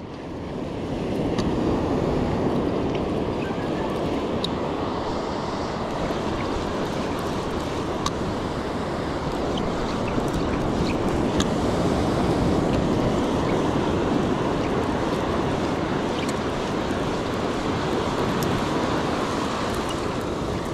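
Ocean surf washing up the beach, with wind buffeting the microphone; a few faint ticks sound over it.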